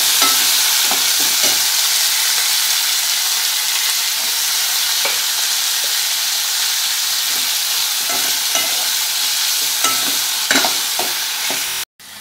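Chopped onions sizzling in hot oil in a metal kadai as they start to sauté, with a metal ladle stirring and scraping, giving scattered clicks against the pan. Near the end the sound cuts off abruptly and comes back much quieter.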